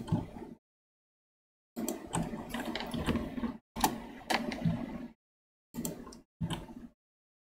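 Computer keyboard and mouse clicks picked up by a desk microphone, coming in short clattering bursts that cut off abruptly into dead silence between them, as a noise gate opens and closes.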